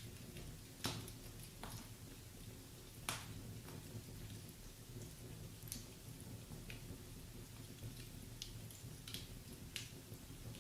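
Wood fire burning in a fireplace: logs crackling with irregular sharp pops, the two loudest about a second and about three seconds in, over a low steady rumble of the flames.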